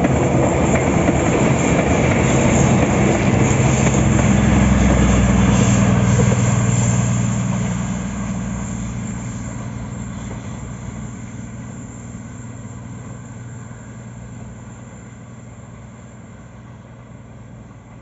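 KA Prameks diesel multiple unit passing close by: a low engine drone with the wheels rumbling on the rails. It is loudest about five seconds in, then fades steadily as the train draws away.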